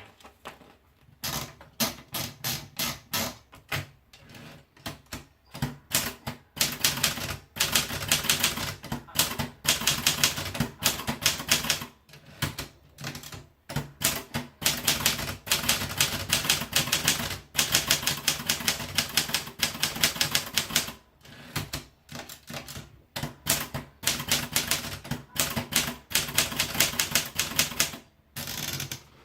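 Erika typewriter by Daro being typed on: fast runs of key strikes separated by short pauses.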